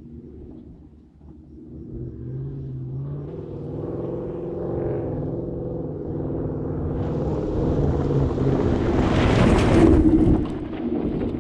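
Pickup truck engine pulling under load on a dirt trail, growing steadily louder over several seconds. Rushing tyre-on-dirt noise builds with it, is loudest about ten seconds in, then drops away.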